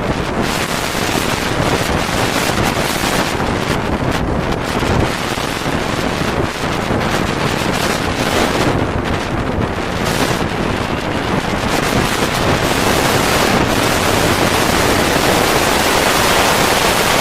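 Strong wind buffeting the microphone: a loud, steady rush with gusts rising and falling.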